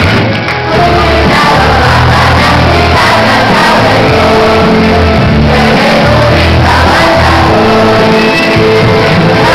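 A crowd singing an anthem together loudly, with shouts mixed in.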